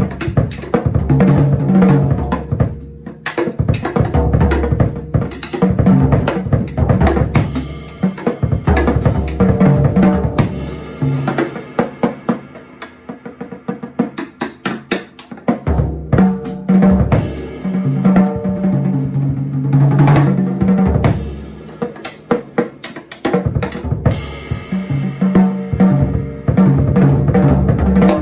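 Music driven by a drum kit, with bass drum, snare and cymbals hitting steadily over low pitched notes; it thins out briefly twice.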